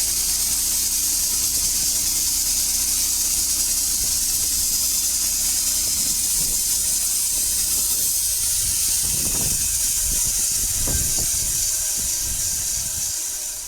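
Portable sawmill cutting along a dry spruce log, a loud, steady hissing rush that eases off near the end as the cut reaches its maximum length.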